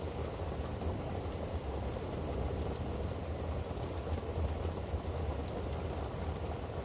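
Steady rain falling, with a low rumble underneath and a few scattered light ticks.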